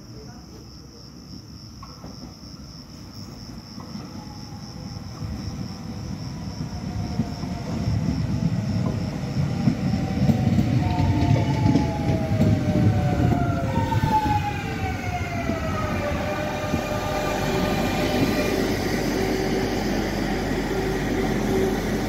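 Electric multiple-unit passenger train approaching and pulling into the platform. A rumble of wheels on the track grows louder, then whines fall in pitch as the train slows. About two-thirds through it settles into a steady hum from the stopped train. A high steady cricket trill is heard through the first half.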